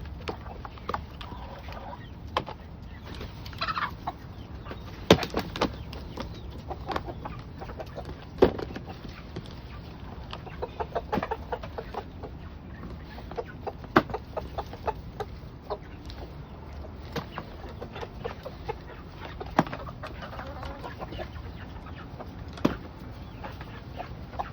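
Backyard chickens clucking, with many scattered sharp clicks and taps.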